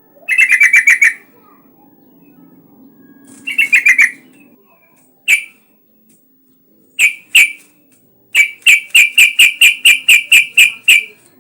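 Yellow-vented bulbul (trucukan) calling loud, sharp chattering notes: two quick rattles, a few single notes, then a run of about a dozen notes at roughly five a second.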